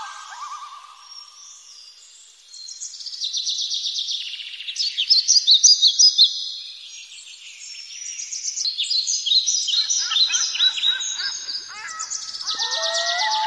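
Birdsong: many birds chirping in a dense chorus of rapid high chirps. It is quieter for about the first two seconds, and lower whistled calls join near the end.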